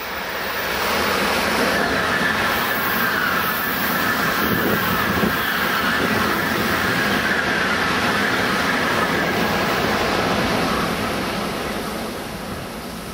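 Tokaido Shinkansen high-speed train passing at speed: a rush of running noise that builds in the first second, holds steady for about ten seconds, then fades near the end.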